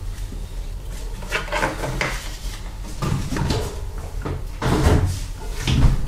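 Several separate knocks and bumps of things being handled, with the heaviest thumps about five seconds in and near the end.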